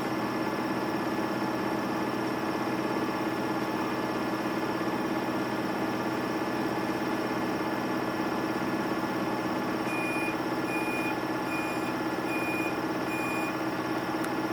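Samsung Eco Bubble washing machine running with a steady motor hum. From about ten seconds in, its control panel gives five short beeps of one high pitch, evenly spaced about half a second apart, and a single click follows near the end.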